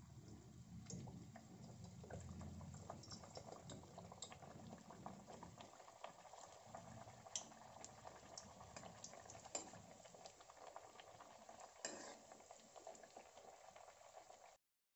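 A semolina-and-potato puri deep-frying in hot oil: a faint, steady bubbling sizzle with scattered small crackles and a few sharper pops. It cuts off suddenly near the end.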